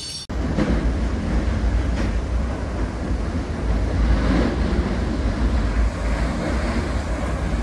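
Goods train's wagons rolling across a steel girder railway bridge: a steady, heavy rumble that starts abruptly a moment in.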